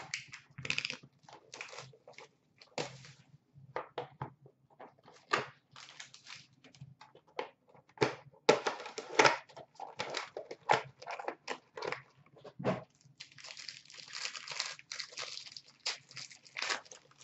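Plastic shrink wrap and packaging of a Panini Playbook hockey card box being torn and crinkled as the box is opened, in irregular crackles, then a denser run of wrapper crinkling from about two-thirds of the way in as a card pack is handled.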